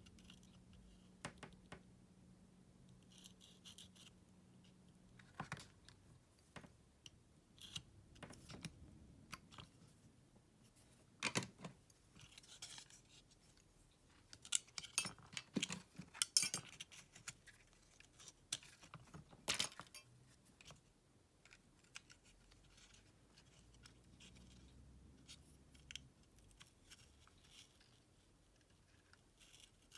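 Scattered small clicks, taps and scrapes of hand work on small parts, with a run of sharper clicks in the middle.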